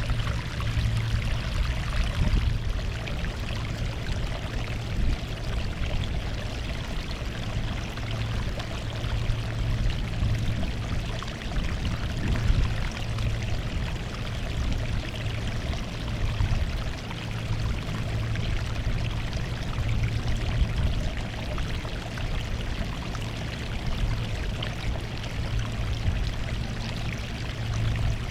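Sea water washing and splashing continuously at the shore in small irregular surges, over a steady low rumble.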